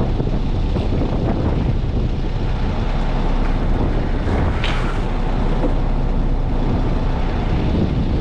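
Steady, loud rumble of wind buffeting the microphone in blowing snow.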